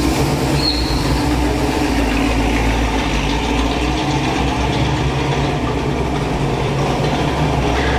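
Shelby GT350 Mustang fastback's V8 running at low speed as the car rolls slowly past, a steady low engine note inside a concrete parking garage.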